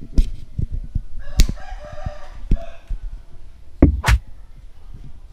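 A rooster crows once, about a second and a half long, starting a little over a second in. Sharp handling clicks and knocks from the handheld portable air compressor being turned close to the microphone, with two loud clicks near the end.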